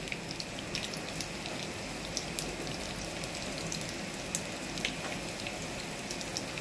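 Breaded chicken nuggets pan-frying in shallow oil: a steady sizzle with scattered small pops and crackles.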